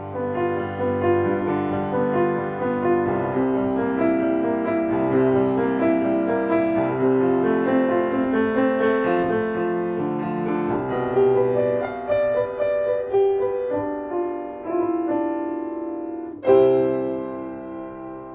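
Solo piano music: a flowing passage of notes, ending on a louder chord struck about sixteen seconds in that rings and fades away.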